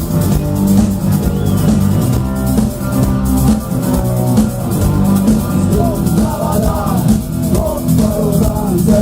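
Rock band playing an instrumental intro: electric guitars, bass and drum kit with a steady beat. About six seconds in, a wavering lead melody comes in over the band.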